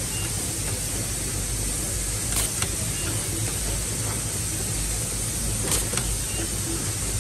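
Automatic nylon cable tie machine cycling on bundles of PV cable: twice, a tie is shot and cinched, each cycle ending in a quick pair of sharp clicks, over a steady low hum.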